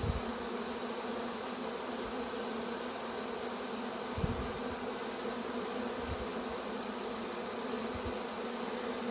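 Honey bee swarm buzzing: a steady hum of many bees close by, with a light knock about four seconds in.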